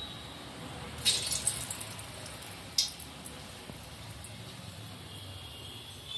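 Moong dal balls deep-frying in hot oil: a faint steady sizzle, with a sudden burst of crackling about a second in and another short crackle near three seconds.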